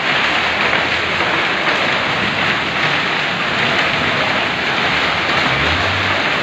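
Heavy rain with hail pouring onto a wet street: a dense, steady hiss. A car goes by on the wet road near the end.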